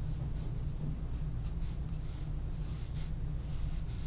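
Quick sketching strokes of a drawing marker or brush pen on paper, a series of short scratches over a low steady hum.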